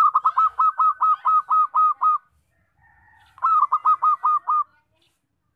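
Zebra dove (perkutut) singing loudly: a rapid run of about ten staccato cooing notes, then after a short pause a second run of about six.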